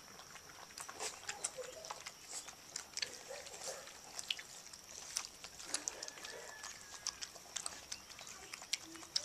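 Several Siberian husky puppies lapping milk from a shallow plastic dish: many quick, irregular wet clicks and slurps, with a few soft grunts among them.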